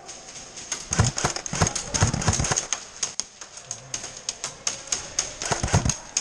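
Airsoft gunfire in an indoor arena: scattered sharp taps and clicks of BBs striking the plywood walls and of guns firing, coming irregularly, with a few heavier knocks among them.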